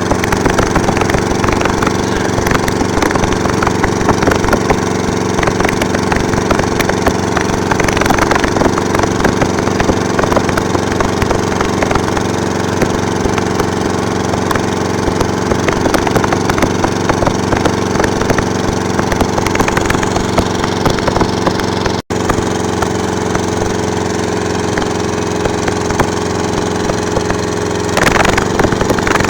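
A steady mechanical hum, like a running motor, under dense crackling and rattling, with a momentary cut about three-quarters of the way through.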